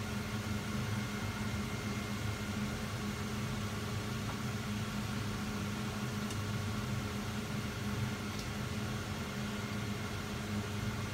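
Steady hum and airy whoosh of a kitchen appliance's motor and fan running without change, with a couple of faint light clicks in the second half.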